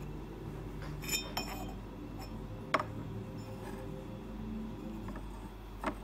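Yixing clay teapot lid clinking against the pot, a few light ringing clinks about a second in, then a sharp click near the middle and another near the end.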